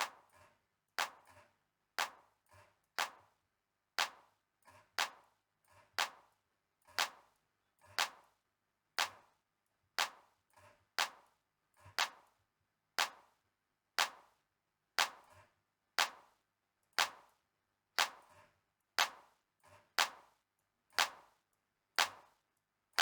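A single solo'd Roland TR-909 drum-machine track: a short, bright, sharp hit once every second in strict tempo, with fainter hits in between, played through the channel strip's dynamics.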